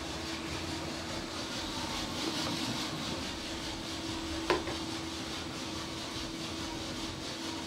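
Giesen drum coffee roaster running in the development phase after first crack: a steady mechanical drone with a constant hum. A single sharp knock on wood about four and a half seconds in.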